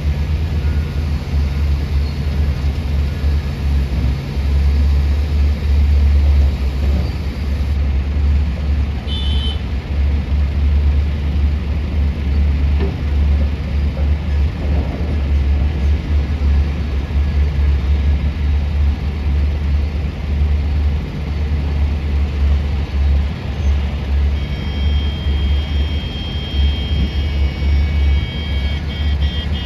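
Heavy diesel engines of a mining excavator and dump trucks running with a deep, steady rumble. About three-quarters of the way through, a high-pitched repeating beep of a reversing alarm joins in.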